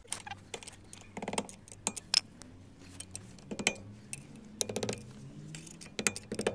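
A steel screwdriver clinking and tapping against the wheel studs and new rear brake disc of a Ford Focus MK1: a string of irregular sharp metal clinks, a few of them ringing briefly.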